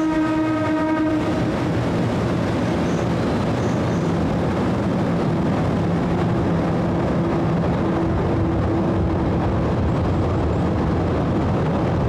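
Kurobe Gorge Railway trolley train, an electric locomotive hauling small passenger cars, running across a steel arch bridge with a steady rumble and clatter of wheels on rails. A horn sounds in the first second, then the rumble carries on evenly.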